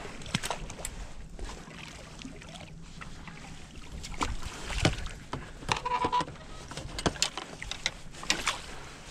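Scattered knocks, clicks and rattles of fishing gear on a small boat (landing-net handle, rods and rod holders) as a catfish is brought into the net, over a low rumble of wind on the microphone. A brief squeak comes about six seconds in.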